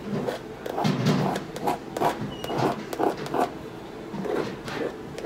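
A quick, irregular run of short scratchy strokes from a thin painting tool dragged through wet acrylic paint on a canvas textured with modeling paste.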